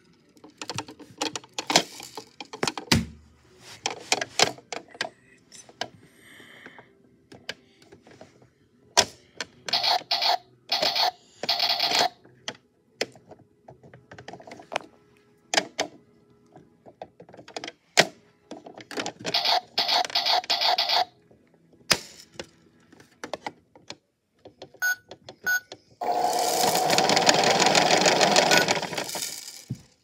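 Toy washing machine being handled: scattered plastic clicks and rattles from its door and parts, with the beads inside rattling. Near the end a steady rattling whir lasts about three seconds.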